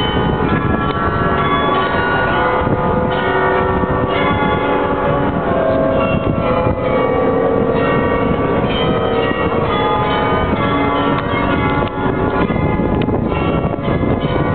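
Mechanical carillon of the Munich Rathaus Glockenspiel playing a tune: many bells struck in quick succession, their ringing notes overlapping, over a steady low background rumble.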